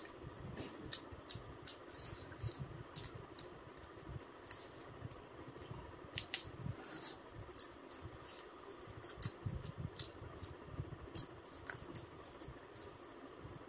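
Close-miked eating sounds: a person chewing chicken curry and rice, with many irregular sharp wet mouth clicks.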